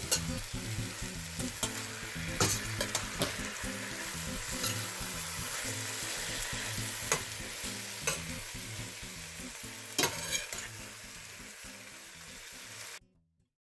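Chopped tomatoes, bell peppers and carrots sizzling in oil in a stainless steel pot while being stirred with a metal spoon, with a few sharp clinks of the spoon against the pot. The sizzle cuts off suddenly near the end.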